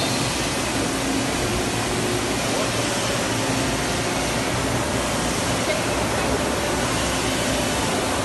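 Steady, even noise of factory machinery around a large plastics injection moulding machine, with a faint hum running through it.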